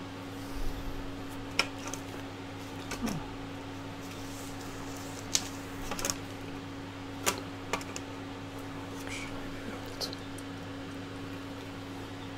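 Scattered light clicks and taps as a 3D-printed plastic idler body and small screws are handled on a tabletop, over a steady low hum.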